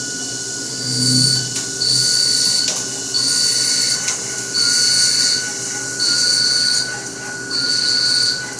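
Haas CNC milling machine cutting aluminum: a steady spindle whine, with a high-pitched cutting squeal and hiss that come in repeated bursts of under a second, about one every second and a quarter, as the cutter moves in and out of the cut.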